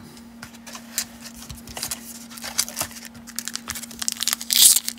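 Crinkling and tearing of a baseball card pack wrapper being handled and pulled open, in many small irregular crackles that get louder and denser near the end. A faint steady hum sits underneath.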